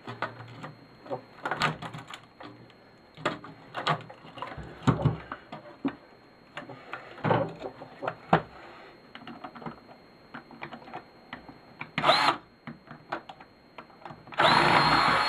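Scattered clicks and knocks of wires and small parts being handled. About twelve seconds in there is a short burst from a power drill, and near the end the drill starts again and runs steadily.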